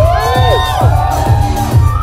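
Electronic dance music with a steady heavy kick-drum beat, roughly two beats a second. In the first second, pitched tones slide up and arch back down over the beat.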